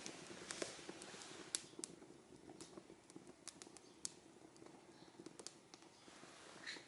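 Dry Japanese cedar leaves burning as fire-starting tinder in a hearth fireplace, crackling with scattered, irregular sharp pops.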